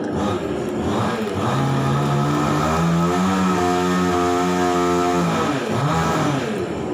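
A motor vehicle engine whose pitch rises over about a second, holds steady, then falls away near the end.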